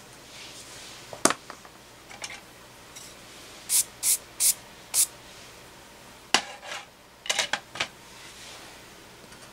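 A hand working with drawing tools over paper: a few sharp clicks and taps, and a run of four quick, hissy swishes near the middle.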